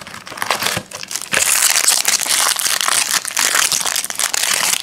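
Crinkly wrapper of a trading-card pack being handled and worked open: a few soft handling clicks, then loud, dense crinkling from about a second and a half in.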